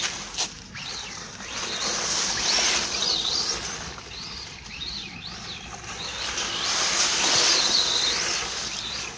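1/14-scale LC Racing EMB WRC radio-controlled rally car driving, its electric motor whining up and down in pitch as the throttle changes, over a steady hiss of tyre and ground noise. It grows louder twice and fades in between as the car comes near and moves away.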